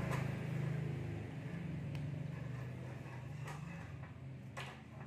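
A motor engine running steadily, easing off a little about a second in. A few sharp knocks sound over it in the second half.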